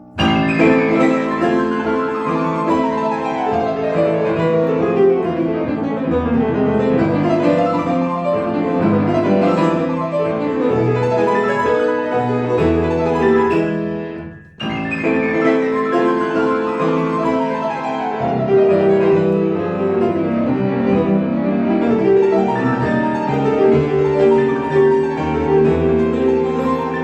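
Solo grand piano playing fast classical passages, opening with a rapid run of notes falling from the top of the keyboard. About halfway through the playing breaks off abruptly, then the same passage starts over from its falling run.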